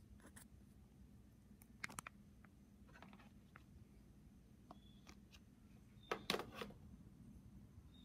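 Belt-driven Fanimation Brewmaster ceiling fan running very quietly with a faint steady hum. A couple of sharp clicks come about two seconds in, and a louder cluster of clicks a little after six seconds.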